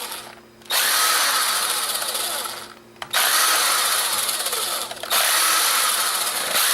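Power screwdriver running in three bursts of about two seconds each, with short stops between them, as it backs out the small screws of a camcorder's plastic casing.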